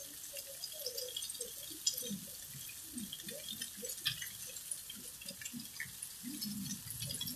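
Rain easing off: a steady hiss of falling rain with many separate drips and splashes.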